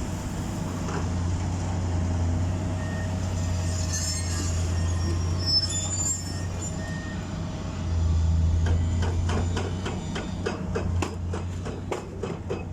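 Concrete mixer truck's diesel engine running steadily with a low hum. About nine seconds in, a fast, even run of clicks starts, about four a second.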